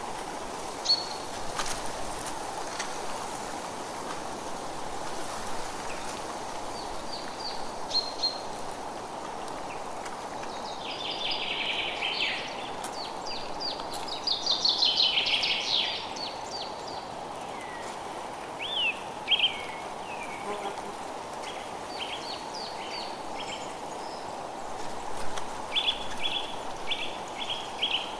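Forest ambience: songbirds calling over a steady background hiss. There are bursts of rapid trilled notes about halfway through and a run of quick repeated chirps near the end.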